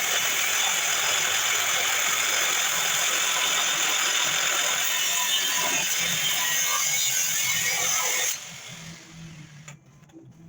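Abrasive cut-off wheel cutting through heavy steel angle iron, a steady loud grinding that stops suddenly about eight seconds in, leaving a few faint clinks.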